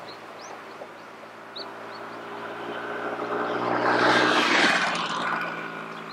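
Vespa 125 ET3 scooter's two-stroke single-cylinder engine approaching, getting louder as it passes close by about four seconds in, then fading as it rides away. A few faint bird chirps come in the first two seconds.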